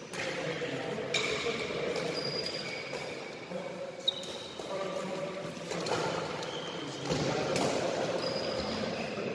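Badminton rallies in a large sports hall: rackets hitting shuttlecocks with sharp cracks several times, and short high squeaks of shoes on the court floor, over a murmur of voices, all with the hall's echo.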